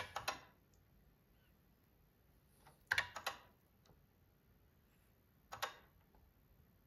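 Keystrokes on the Informer 213 terminal's keyboard: a few clicks at the start, a quick run of several keystrokes about three seconds in, and a couple more about two and a half seconds later.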